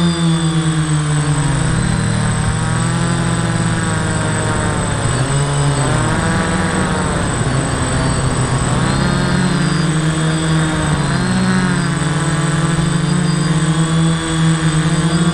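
The electric motors and propellers of a custom-built quadcopter, heard from the camera mounted on its frame: a loud buzz made of several pitches that rise and fall separately as the motor speeds change in flight. A faint steady high whine runs under it.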